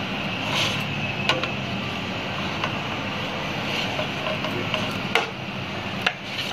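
Wooden spatula scraping and knocking in a nonstick frying pan and against a plate, with a few sharp knocks, over a steady low hum in the background.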